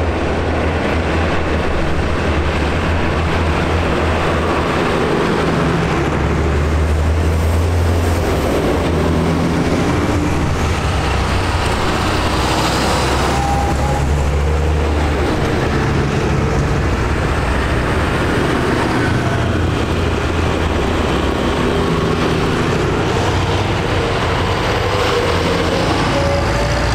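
Diesel farm tractors driving past one after another, their engines making a loud, steady low drone.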